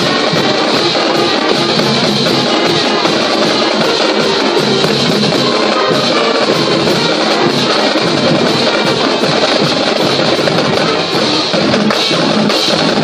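High school marching band playing, with its drums prominent.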